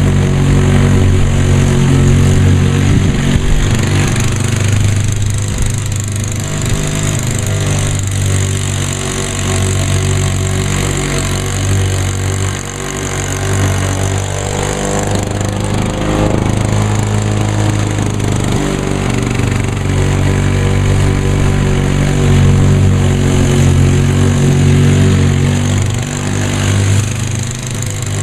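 Lawn-Boy two-stroke walk-behind lawn mower engine running steadily while mowing, its level dipping briefly now and then.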